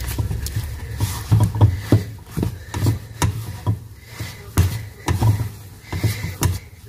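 Wooden spatula turning and pressing thick, fully cooked rice fufu in a non-stick saucepan: irregular dull thuds and scrapes, about two a second.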